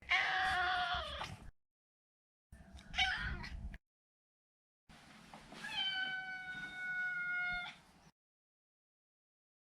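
Maine Coon cat meowing three times: a meow that drops in pitch at its end, a short one, then a long meow held steady for about three seconds.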